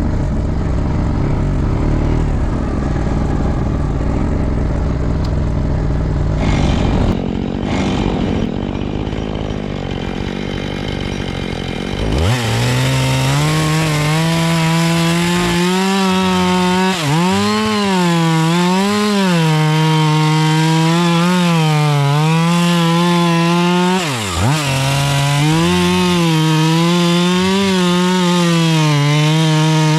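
ATV engine running for about the first twelve seconds; then a two-stroke chainsaw starts up with a quick rise in pitch and runs at high revs. Its pitch wavers up and down and drops sharply twice, as the chain takes and leaves cuts while limbing.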